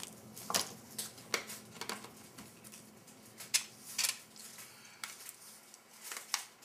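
Small candy-coated gum pellets and fingertips tapping and sliding on a stainless steel tray: a scattering of short, sharp metallic clicks at irregular intervals.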